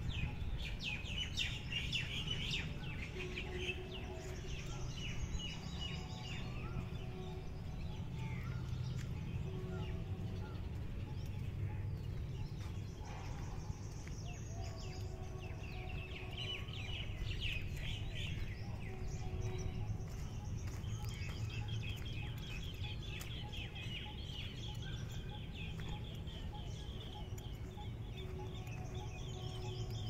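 Several wild birds chirping and trilling together in dense, overlapping calls, with short series of lower repeated notes every few seconds. A steady low rumble runs underneath.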